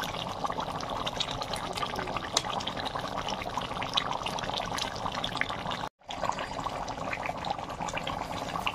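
Chicken curry boiling in a pan, a steady bubbling with many small crackling pops. The sound cuts out for a moment about six seconds in.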